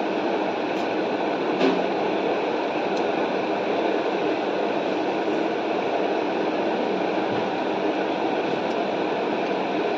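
Steady rushing background noise at an even level, with a single faint click about one and a half seconds in.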